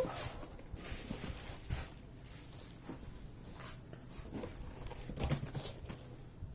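Paper and packaging rustling and crinkling, with a few soft taps, as posters and items in a merchandise box are handled.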